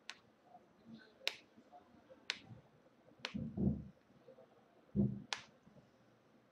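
Sharp snapping clicks from the hands during a hand-and-wrist massage, five in all, roughly one a second, with two dull thumps in between.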